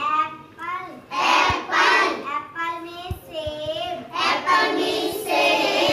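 A young girl's voice singing solo, a high-pitched melodic line in short phrases.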